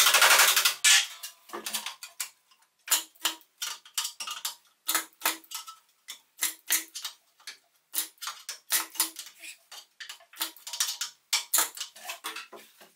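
Handheld resistance spot-welding gun working along a car's front panel: a loud hissing burst right at the start, then a string of short, sharp crackling clicks at irregular intervals.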